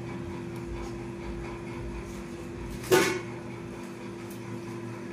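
One sharp knock about three seconds in as the stainless-steel mixer-grinder jar is picked up off the counter, over a steady low hum.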